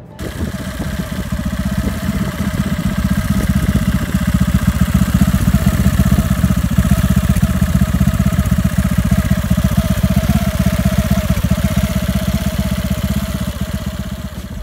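EOS 240cc single-cylinder four-stroke prototype paramotor engine running steadily, a rapid even firing pulse. It swells up over the first few seconds and eases off slightly near the end.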